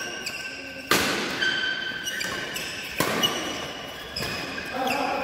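Badminton rally: two sharp racket strikes on the shuttlecock, about two seconds apart, each echoing in the hall, with short squeaks of shoes on the court floor between them.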